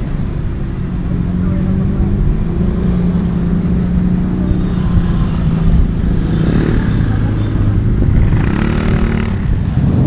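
Street traffic: motor vehicle engines running steadily with a low hum, with people's voices mixed in.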